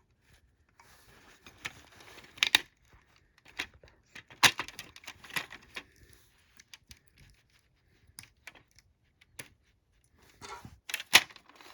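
Plastic clicks, scrapes and rustling as a battery is worked out of a smoke alarm's battery compartment, with the loudest knocks about two and a half seconds in, around four and a half seconds, and just before the end.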